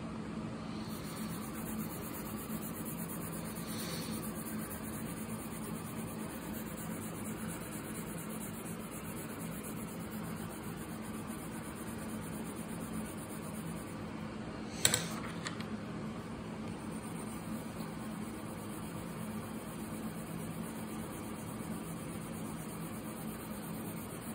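Steady low mechanical hum, like a fan or appliance running, with one sharp click about fifteen seconds in.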